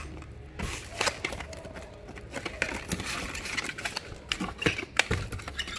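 Small cardboard parts box and bubble-wrapped packages being handled in a cardboard carton: irregular rustling with scattered light knocks and clicks.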